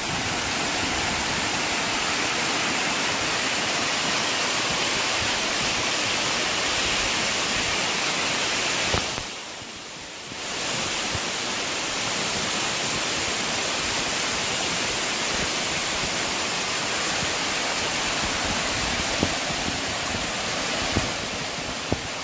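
Steady rushing roar of a waterfall, dipping briefly about nine seconds in before resuming.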